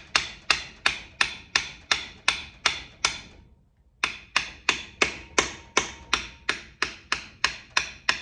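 Rapid, even metal taps, about four a second, driving a piston wrist pin through the connecting rod and into the far side of the piston. There is a brief pause a little past three seconds in, then the tapping resumes.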